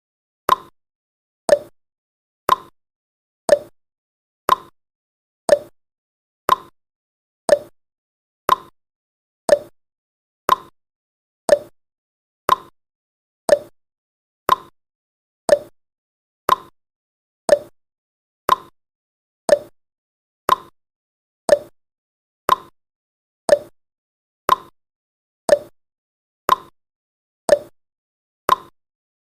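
Countdown timer's ticking sound effect: one short tick every second, alternating between a lower and a higher pitch like a clock's tick-tock.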